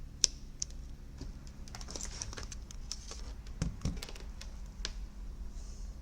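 Scattered small clicks and taps of tools and parts being handled on a repair bench, over a faint steady low hum.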